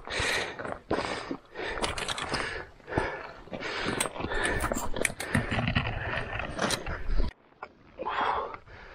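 Hiking boots scrambling up loose scree, stones crunching and clattering underfoot in an irregular run of steps, with a short pause near the end.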